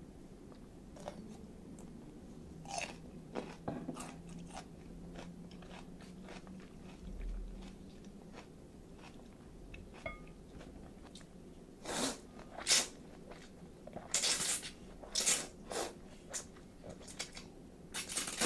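Eating sounds of chilled ramen: quiet sips and small mouth clicks at first, then from about two-thirds of the way in a run of loud, short, airy slurps of noodles with chewing between them.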